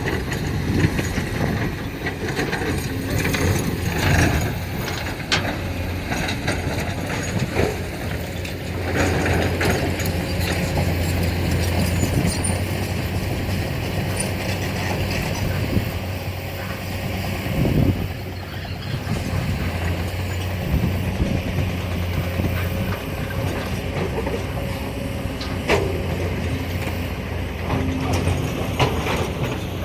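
Heavy diesel engine of an excavator loading dump trucks, running steadily under load, with scattered sharp knocks and clatter throughout.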